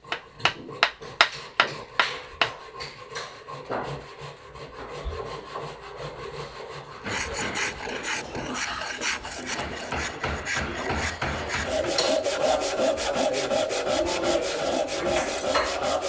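Hand tools working wood: a quick run of about six sharp taps at the start, then steady, rapid rasping strokes on wood from about seven seconds in, getting louder toward the end.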